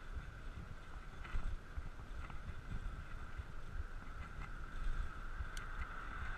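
Wind rumbling on the microphone and road noise from a bicycle rolling on Specialized Nimbus 700x35 Armadillo tyres, with a steady high hum and a few light clicks.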